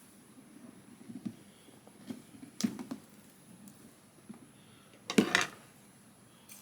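Doll packaging being handled and opened: a scatter of short clicks, taps and rustles, the loudest cluster about five seconds in.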